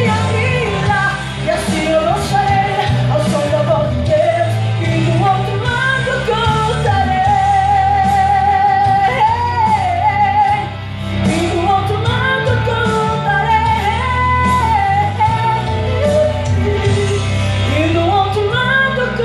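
A woman singing a Portuguese gospel worship song over instrumental backing, with a long held note sung with vibrato about eight seconds in.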